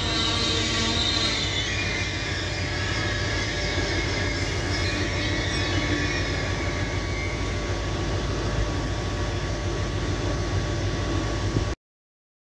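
ETR 700 electric high-speed train moving through the station: a steady low rumble with high whining tones that glide up and down in pitch, mostly in the first few seconds. The sound cuts off suddenly near the end.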